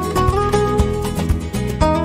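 Background music: acoustic guitar in a flamenco style, a quick run of plucked notes over a low accompaniment.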